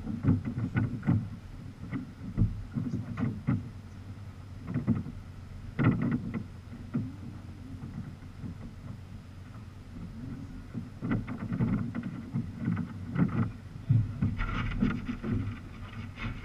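Water splashing and sloshing against a sea kayak as it is paddled, with irregular sharp splashes and knocks from paddle strokes on the water and hull.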